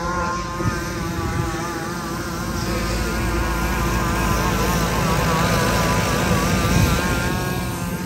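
A motor engine running steadily, its pitch wavering slightly, with low wind rumble growing from about three seconds in.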